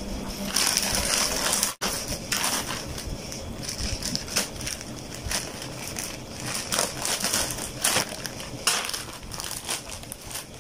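Plastic courier mailer bag being torn open and crinkled by hand: a run of irregular rustling and tearing, loudest in the first couple of seconds.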